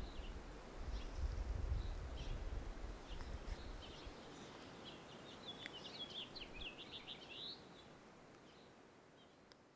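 Outdoor ambience with birds chirping and singing: scattered short calls, and a quick run of song notes about halfway through. A low rumble dies away about four seconds in, and the whole sound fades down toward the end.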